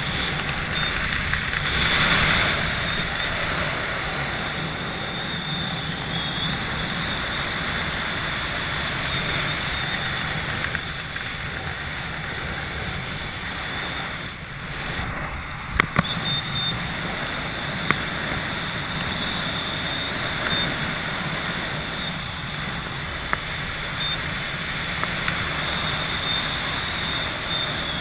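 Wind rushing over an action camera's microphone in flight, a steady noisy rush with a low hum under it and a thin high whine. A few sharp clicks come a little past the middle.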